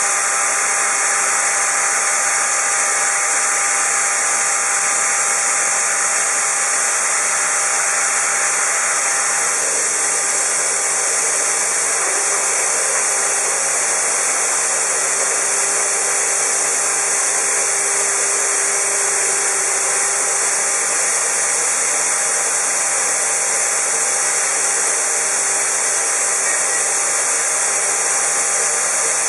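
Shoda NC router running steadily, trimming a pressure-formed plastic keyboard cover: a continuous loud hiss with faint steady tones beneath it.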